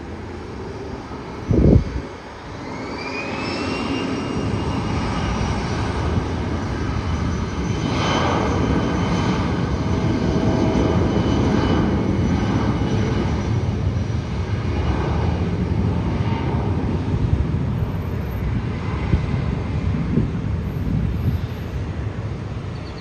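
Bombardier Challenger business jet's twin turbofan engines spooling up to takeoff thrust: a whine rising in pitch for a second or two, then levelling off into steady, loud jet noise with a deep rumble. A brief low thump just before the whine is the loudest moment.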